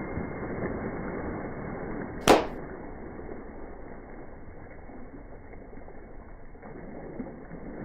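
Vehicle exhaust backfire: one sharp, very loud bang a little over two seconds in, over steady muffled background noise.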